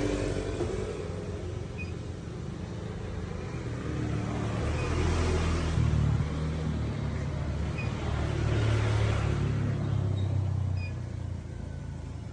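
An engine running with a low hum that grows and fades, with slow swells of noise like vehicles passing, and a few faint short high chirps.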